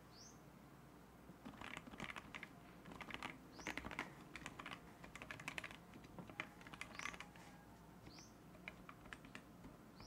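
Typing on a Tofu60 60% mechanical keyboard with lubed and filmed TTC Bluish White linear switches, an aluminium plate and PBT keycaps. The keystrokes come in quick runs with short pauses between them, starting about a second in. A few short, high rising chirps sound in the background.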